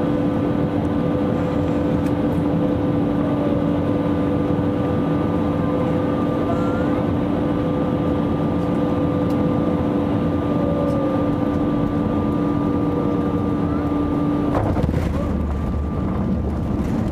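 Jet airliner cabin noise on final approach: a steady rush of air with steady engine tones. About three-quarters of the way through the tones cut off and there is a thump as the wheels touch down, followed by a low rumble of the tyres rolling on the runway.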